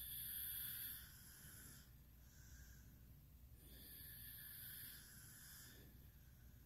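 Faint, slow, heavy breathing of someone asleep: two long hissy breaths about four seconds apart with a weaker one between, over a low steady hum.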